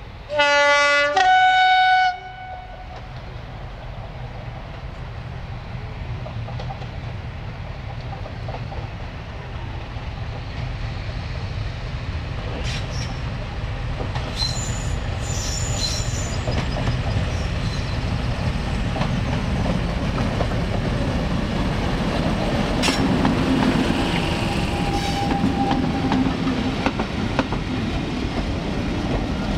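Two-tone horn of a Class 50 diesel locomotive giving a short blast, a low note then a higher note, each under a second. Then the locomotive's English Electric 16-cylinder diesel engine and the train's wheels on the rails rumble, growing steadily louder as it approaches.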